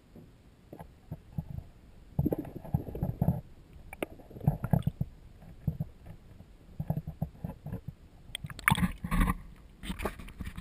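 Muffled, irregular thumps and water sloshing heard through a GoPro Hero 2's underwater housing. Near the end, louder splashing as the camera comes up out of the water.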